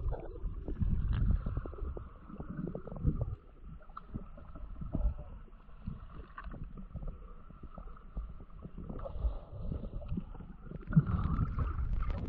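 Uneven low rumbling on the microphone over a faint steady hiss, with a few scattered light knocks.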